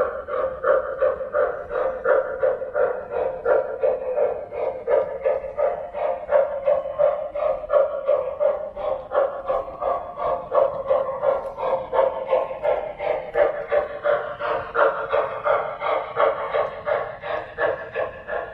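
Electronic steam chuffing from the speaker of an MTH RailKing model Norfolk & Western Y6b 2-8-8-2 locomotive, a steady, even rhythm of chuffs at running speed, sounding thin and tinny from the small speaker.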